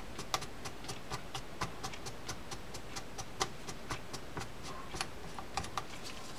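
A baitcasting reel's star drag being turned down onto its threaded shaft by hand, giving a run of light, quick clicks, about three to four a second and slightly uneven.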